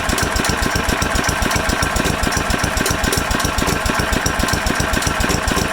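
Small Tecumseh engine idling low and steady with evenly spaced firing pulses, running on a freshly rebuilt OEM carburetor.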